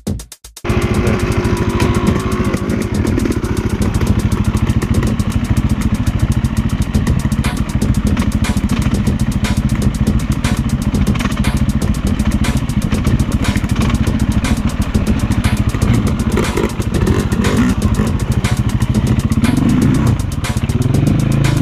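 Four-stroke single-cylinder dirt bike engine running under throttle, with many short clatters and knocks over it. A short end of electronic music is heard at the very start.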